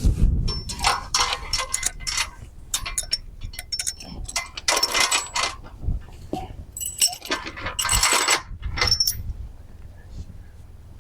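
Metal clinking and rattling in several short bursts, like hard fittings knocking together as they are handled. A steady low drone stops right at the start.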